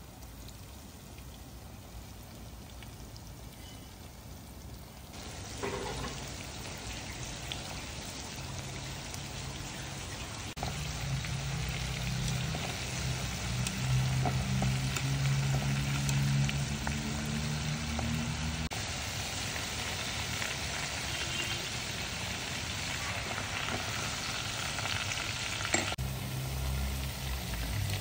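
Flour-coated pork pieces deep-frying in a stainless steel pot of hot oil: a steady crackling sizzle that gets louder about five seconds in.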